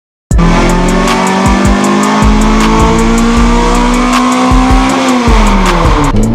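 Electronic music track that starts abruptly, with a steady beat of low kicks and crisp high ticks under long held tones; the tones slide down in pitch together near the end.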